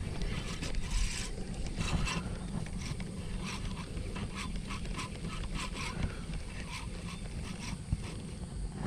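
Short animal calls repeating, about two or three a second, over a low steady rumble of wind on the microphone.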